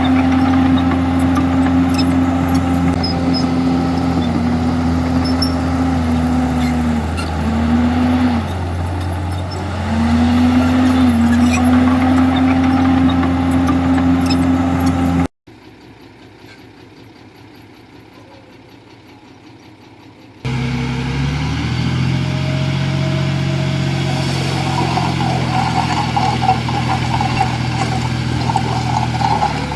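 Heavy diesel engine of a Komatsu D51EX bulldozer running hard and steadily, its pitch sagging a few times as it takes load. About halfway the sound cuts off abruptly to a much quieter stretch; about five seconds later a heavy diesel engine comes back in at a lower pitch, with a crackling, grinding noise over it near the end.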